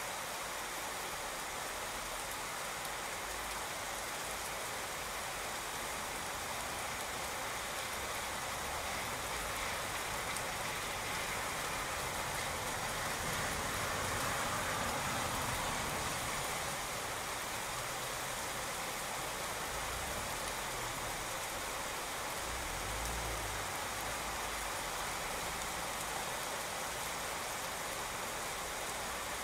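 Steady rain falling on a street and pavement, with a car passing on the wet road that swells to its loudest about halfway through, then fades. Faint low rumbles from the road come later on.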